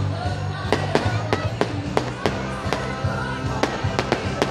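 Fireworks going off: sharp bangs and crackles at uneven spacing, about three a second, over loud music.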